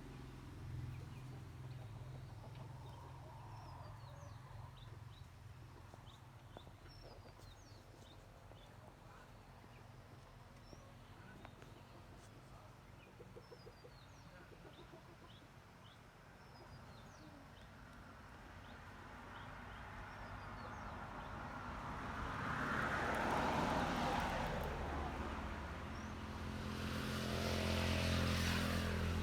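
A low, steady engine rumble with small birds chirping over it, then two vehicles passing one after the other in the last third, the second pass the loudest.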